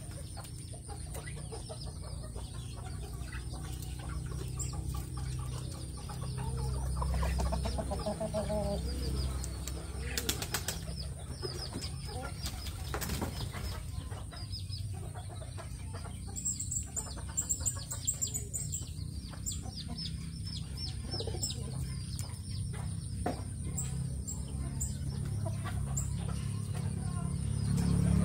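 Birds in a coop of Brahma chickens and pigeons: quick high chirps keep coming, with wings flapping and a few lower calls, over a steady low rumble. Two sharper sounds stand out near the middle.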